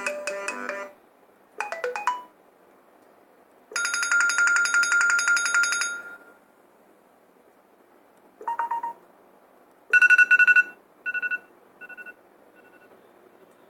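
A run of iPhone ringtones and alert tones separated by short silences: a melodic ringtone ends in the first second, a brief chime follows about two seconds in, then a loud rapid pulsing tone from about four to six seconds and a short tone near nine seconds. A final beep repeats several times, fading away.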